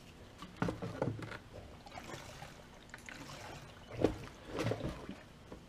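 Gasoline sloshing and gurgling as it is poured from a plastic gas can into a small plastic snowblower gas tank. Hollow plastic knocks come as the can's spout and the tank are handled, loudest about half a second in and again about four seconds in.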